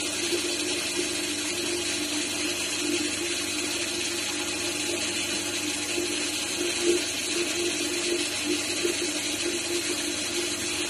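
High-speed spindle with a small end mill milling an engraved pattern into a motorcycle's aluminium rear brake drum cover: a steady machine whine and hiss with a cutting buzz that wavers in strength as the bit moves through the metal.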